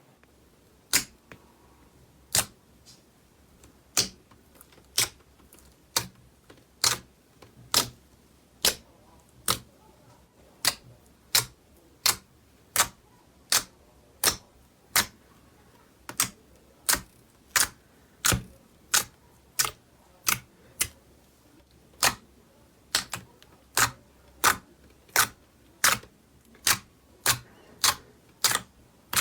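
Slime being pressed and poked, giving a long series of sharp popping clicks about once a second that come a little faster near the end.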